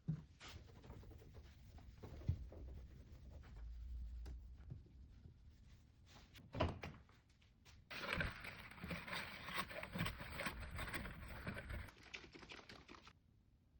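Faint handling noises while cleaning a washing machine: soft knocks, with a sharper thump about halfway. Then several seconds of scratchy rubbing noise with small clicks in it, which stops shortly before the end.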